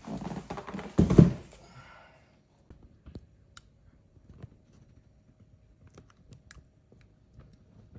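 Cardboard packaging being pulled away and handled, with a loud rustling scrape about a second in, then faint scattered clicks and taps as the new DJ mixer is handled.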